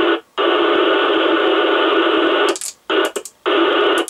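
Jopix 900 Pro CB radio's speaker giving steady receiver hiss with the squelch open. The hiss cuts out for a moment just after the start, and from about two and a half seconds in it breaks up into short gaps and clicks as the channel knob and band are switched.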